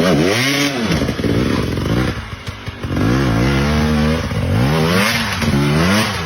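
Off-road motorcycle engine revving up and down again and again as the throttle is opened and closed, with a short lull a little over two seconds in.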